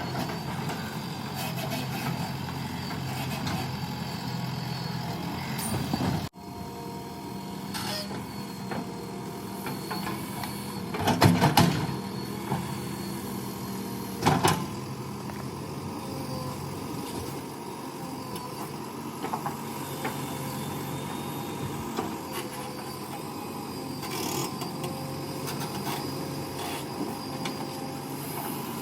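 JCB 3DX backhoe loader's diesel engine running steadily while digging, with brief louder surges about eleven and fourteen seconds in. The sound drops out for an instant about six seconds in.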